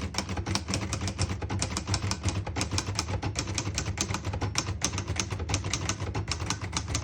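1956 Hermes Baby manual portable typewriter being typed on at a steady pace, its typebars striking the platen at about six keystrokes a second. The keys are typing cleanly, none skipping or sticking.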